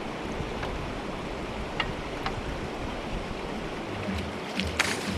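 River water running steadily, with a few short sharp noises near the end.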